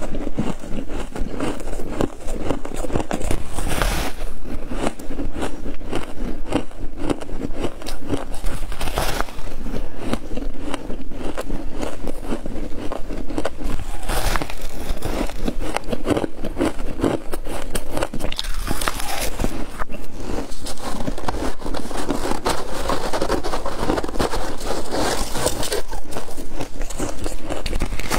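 Freezer frost being bitten and chewed: continuous crisp crunching and crackling as the soft, packed frost breaks up in the mouth, with a sharper bite off the block about every five seconds.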